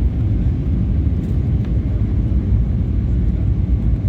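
Steady low rumble of cabin noise inside an Airbus A320neo on final approach with the landing gear extended: airflow over the airframe and the engines.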